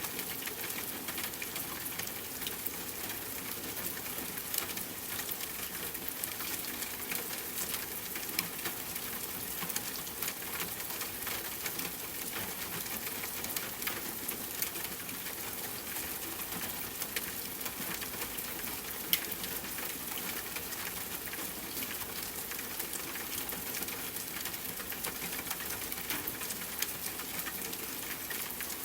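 Steady rain falling on a tent, with campfire crackling: a dense run of small ticks and a few louder pops.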